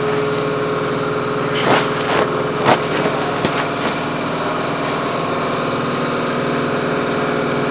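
Steady, even machine hum of a motor running at constant speed, with a couple of light knocks about two and three seconds in.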